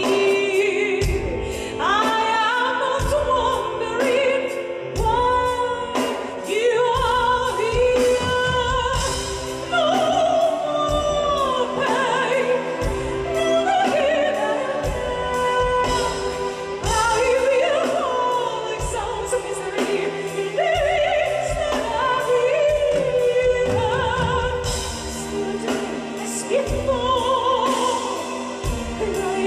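Live symphonic metal song: a female soprano sings a wavering melodic line over a symphony orchestra and a drum kit, with regular drum hits under the sustained orchestral chords.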